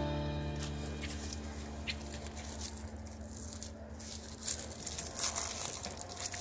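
Faint, irregular rustling and scratching of plastic raffia string being handled and wound to tie back long hair, busier near the end. A little background music dies away in the first second.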